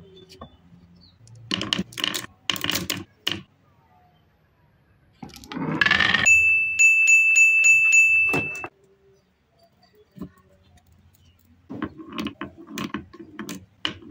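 Glass marbles clicking and knocking against each other and the wooden track as they roll and gather in the slots. In the middle, a rising swoosh runs into a loud, steady high ringing tone for about two seconds and stops abruptly.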